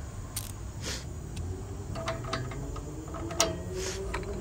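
A few scattered metallic clicks and taps from a ratchet on an O2-sensor socket, worked on the upstream air-fuel ratio sensor to loosen it.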